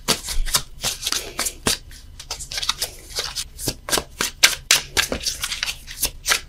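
A deck of tarot cards being shuffled by hand: a quick, irregular run of card slaps and flicks, several a second, while a card is sought to clarify the reading.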